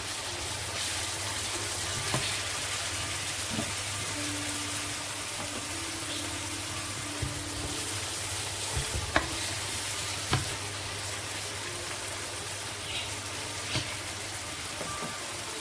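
Minced meat frying in olive oil in a frying pan, sizzling steadily as it is stirred, with a few sharp knocks of the utensil against the pan.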